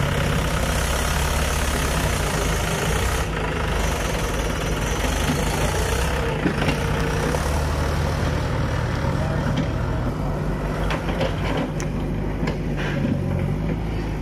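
Mahindra XP 475 tractor's diesel engine running steadily under load as it hauls a brick-laden trolley across muddy ground. A few knocks and rattles come in over the last few seconds.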